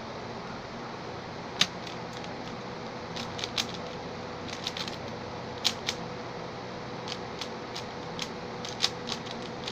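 Quick, irregular plastic clicks and clacks of a Xin Lexin stickerless 3x3 speed cube being turned during a timed solve, with a few sharper snaps among them.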